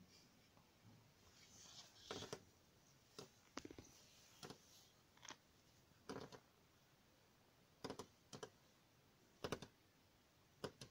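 A small bird pecking at a car door: sharp taps, some single and some in quick runs of two or three, coming about once a second with uneven gaps.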